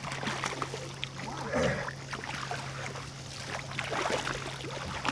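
Water splashing and sloshing in irregular bursts as a hooked channel catfish thrashes at the surface in the shallows and is drawn into a landing net.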